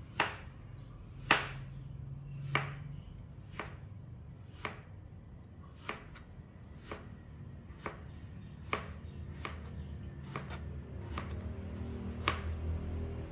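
Cleaver slicing ginger root on a plastic cutting board: a slow series of sharp knocks, roughly one a second, as the blade cuts through and strikes the board with each slice.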